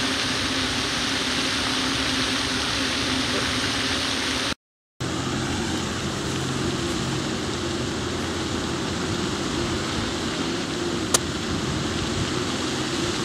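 Steady outdoor rushing noise that cuts out briefly, then a steady low hum. About eleven seconds in comes a single sharp click: a sand wedge striking a golf ball on a short pitch.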